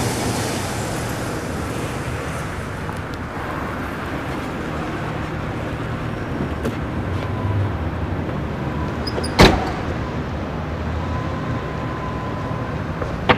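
Stretch limousine driving in slowly and stopping, its engine a steady low rumble. About nine seconds in a car door shuts with a sharp thud, and another door knock comes near the end.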